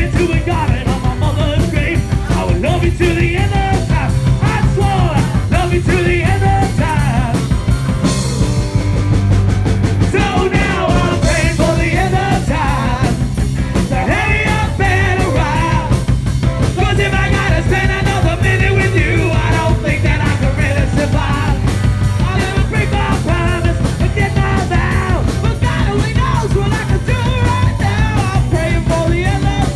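Live rock band playing with two singers on microphones, a steady drum beat under the vocals. Cymbal crashes wash in about eight seconds in and again near eleven seconds.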